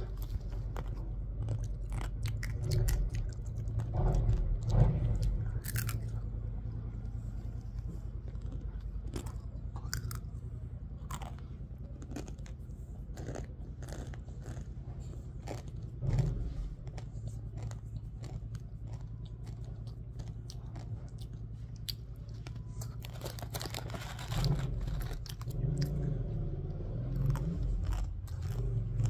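A person chewing and biting a crisp snack close to the microphone: irregular sharp crunches over a steady low hum.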